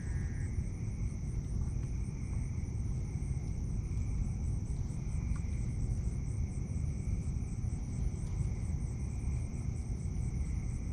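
A chorus of night insects, with steady high drones and a quick, evenly repeating high pulse, over a louder continuous low rumble.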